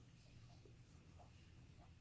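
Near silence: faint soft rustles of yarn being wound around a hand, over a low steady hum.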